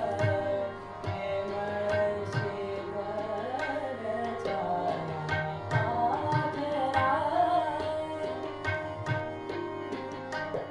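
A male voice singing Marathi natyasangeet in gliding, ornamented melodic runs, accompanied by a harmonium's held chords and tabla strokes keeping a steady rhythm.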